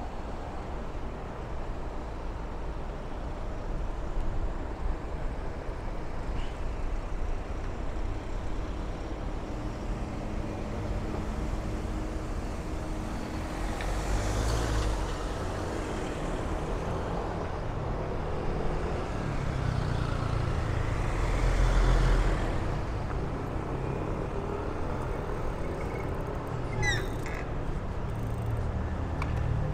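City street traffic: a steady hum of road noise, with two vehicles passing close, about halfway through and again a few seconds later, when the sound swells and fades.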